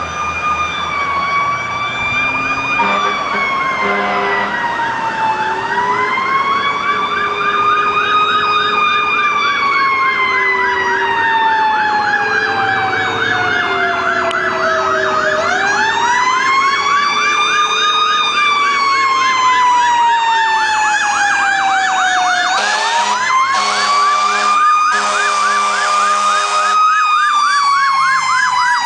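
Fire truck responding with sirens: a slow wail that climbs and sinks in long sweeps, about three times, over a fast yelp. Horn blasts sound from about three-quarters of the way through until shortly before the end.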